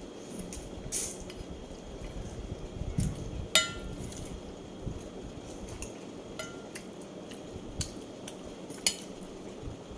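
Dishes and utensils clinking during a meal: scattered sharp clinks, the loudest about three and a half seconds in, ringing briefly.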